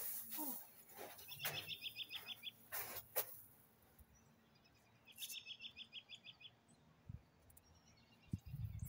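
A songbird singing a quick trill of about eight high notes lasting about a second, twice, roughly four seconds apart, with a few faint knocks and rustles in between.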